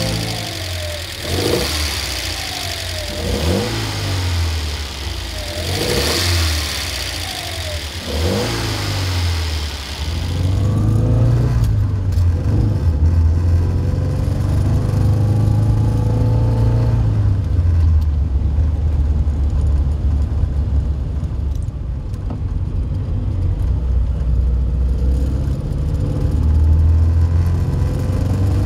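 1960 Alfa Romeo Giulietta Sprint Veloce's twin-cam four-cylinder engine blipped about five times with the bonnet open, each rev rising and falling quickly, with a strong intake hiss. Then the engine runs under load on the road, its pitch climbing and dropping with each gear change.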